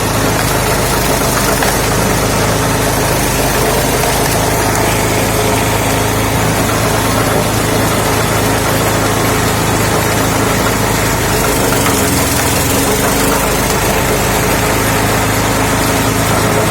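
Lifan 6.5 hp single-cylinder four-stroke petrol engine of a homemade screw-cone log splitter, running at a steady speed. The low hum changes briefly about twelve seconds in.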